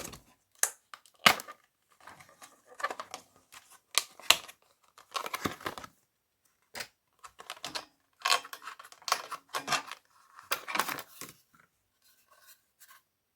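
The SSD's retail packaging being opened by hand: irregular bursts of scraping, rustling and tearing, with a few sharp clicks.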